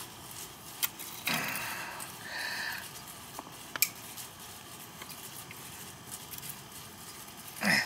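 Scattered faint metallic clicks and scrapes of tongue-and-groove pliers working at a stuck wire connector on a scroll compressor's terminals, with a sharper click about a second in and another near four seconds.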